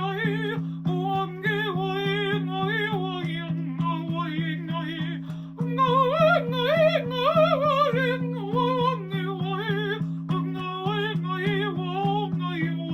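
Wordless improvised singing by a woman's voice, gliding and wavering in pitch, over a steady two-note drone with a regular pulsing beat.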